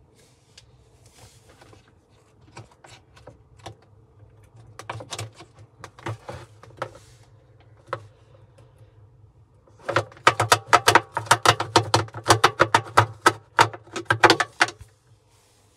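Quick scrubbing or brushing strokes, scattered at first, then a dense fast run about ten seconds in that stops shortly before the end, over a low steady hum.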